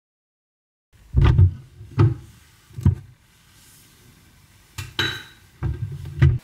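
A cupboard being rummaged: starting about a second in, a run of separate knocks and thuds as things inside are moved and the wooden cupboard door is handled.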